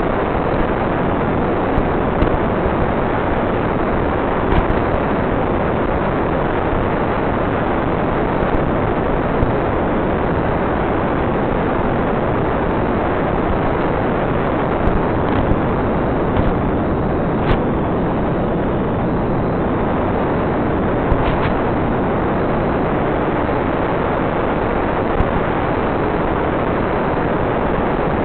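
Steady loud rush of wind and airframe noise on the onboard microphone of an FPV radio-controlled plane in flight under power, heard through the narrow-band analog video link, with a few short clicks scattered through it.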